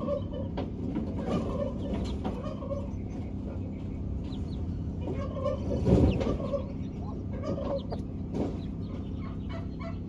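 Broody hens clucking softly and repeatedly as they brood their chicks, with faint high chick peeps mixed in. About six seconds in there is one brief, louder sound.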